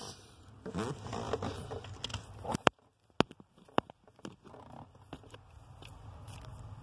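Rustling of wiring being handled under a car's dashboard, then three sharp snips of wire cutters about half a second apart, the first the loudest.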